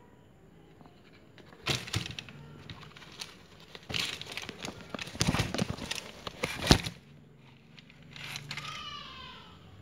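Handling noise from a synthetic futsal shoe, Joma Supersonic, as fingers rub, flex and tug its tongue and lining: irregular scraping and crackling in bursts, loudest from about four to seven seconds in. Near the end a short run of falling chirps.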